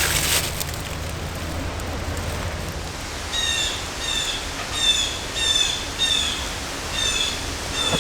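A songbird calling over and over in short, slightly falling chip notes, about two a second, starting about three seconds in, over a steady outdoor hiss. A low hum is there at first and fades out before the calls begin.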